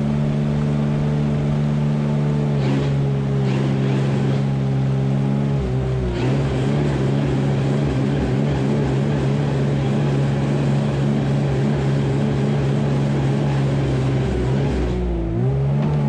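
A tractor's diesel engine running at a steady pitch; its sound turns rougher and more uneven about six seconds in.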